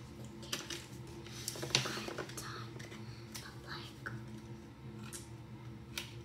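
Small hair clips being pulled off their cardboard backing card: scattered light clicks and paper rustling, loudest about two seconds in, over a steady low hum.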